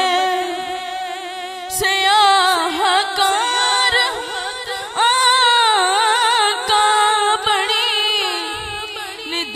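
A boy singing a naat unaccompanied into a microphone: a long wordless melismatic passage, the pitch wavering and gliding through ornaments, broken by two short breaths.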